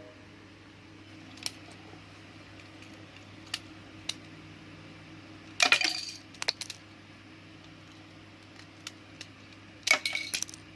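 Lego brick pistol being handled and worked: a few single plastic clicks, then two short bursts of small hard plastic clatter about four seconds apart, over a faint low hum.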